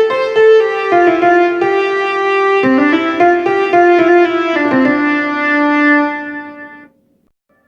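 Korg Pa300 arranger keyboard playing a stepwise melody in a piano-like tone, its last note fading out about seven seconds in.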